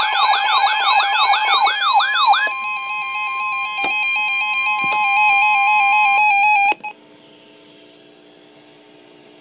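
Emergency Alert System alert tones. A rapid warbling siren tone of repeated falling sweeps, about four or five a second, runs for the first two and a half seconds. Then comes the steady two-tone EAS attention signal, which cuts off abruptly about two-thirds of the way through and leaves only a faint hum.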